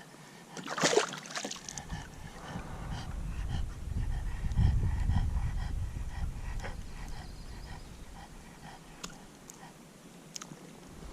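A bulldog panting and snorting close to the microphone, with a sharp rustle about a second in.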